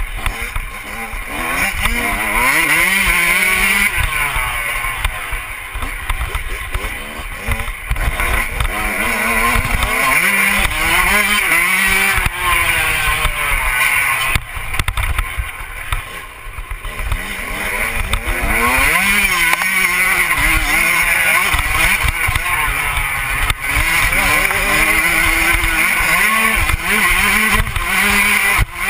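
Motocross dirt bike engine ridden hard on a track, its pitch climbing as it accelerates and dropping at each gear change or throttle-off, over and over. Wind buffets the helmet-mounted microphone throughout.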